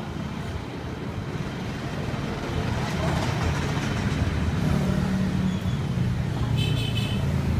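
A motor vehicle engine running close by and growing louder, with a brief high-pitched squeal or tone near the end.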